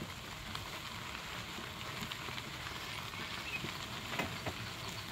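Wheels of a mobility chair rolling along a dirt and fine-gravel trail: a steady crackle of grit under the tyres, with a low rumble beneath.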